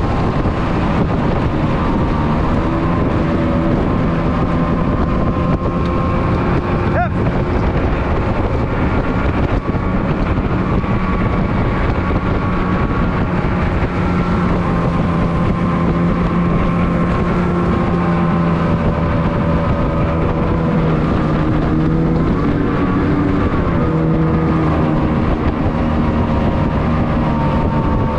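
Outboard motor of an aluminium racing dinghy running flat out, a loud steady drone whose pitch wavers only slightly as the boat speeds along.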